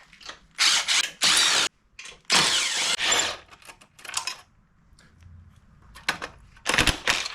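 Tool working on bolts in a few short loud bursts, then a sharp clatter near the end as a piece of stainless steel hardware is dropped.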